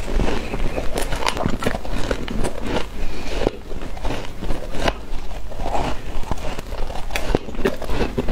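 Crunching and chewing of freezer frost eaten off a metal spoon, close to the microphone: a dense, crisp crackling that keeps up throughout, with the spoon scooping more frost from the tub near the end.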